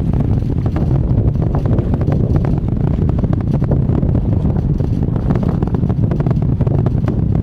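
Steady low rumble of the Space Launch System rocket heard from far away, with crackling throughout, mixed with wind on the microphone.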